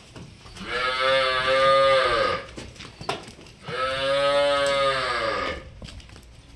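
A cow mooing twice, two long calls of about two seconds each, each rising in pitch and then falling away at the end.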